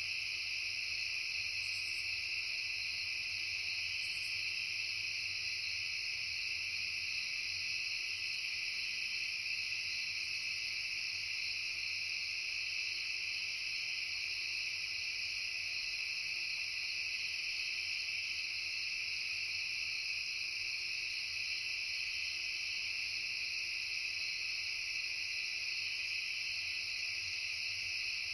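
Steady chorus of crickets and other insects trilling continuously in several overlapping high-pitched layers.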